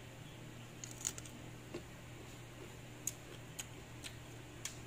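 Close-up chewing of crisp, unripe green mango: a handful of sharp, irregular crunches and mouth clicks over a steady low hum.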